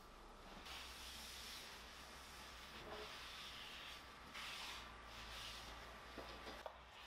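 A cloth wiping along a metal shelf: faint rubbing in a few long, swelling strokes.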